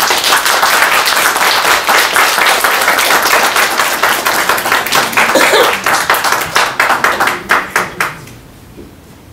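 Audience applauding. The clapping is dense at first, thins to a few last claps about seven seconds in, and stops about a second later.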